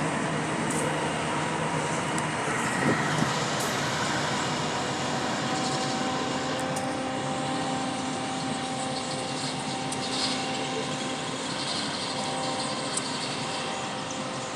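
A train running through a station: steady engine and rolling noise, with a few light knocks early on and a steady engine hum that settles in about five seconds in.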